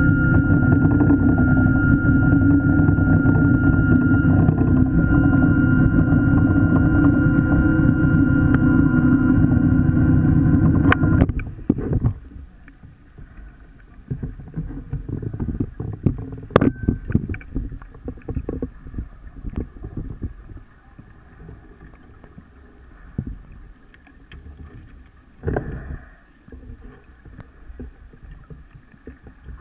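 Underwater scooter (diver propulsion vehicle) motor running steadily with a whine, heard underwater, cutting off about eleven seconds in. After it stops there are faint irregular clicks and crackles, and a short rush of noise near the end.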